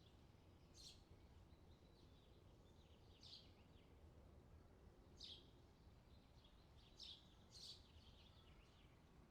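Faint bird chirps: about five short high chirps, one every second or two, with softer twittering between, over a steady low background rumble.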